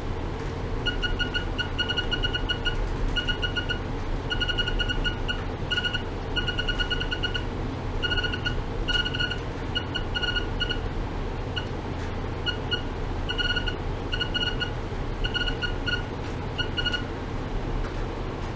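Ultrasonic probe driven by a function generator in pulse oscillation, giving off trains of rapid, short high-pitched beeps at one steady pitch, broken by brief gaps. The beeps start about a second in and stop near the end, over a steady low hum.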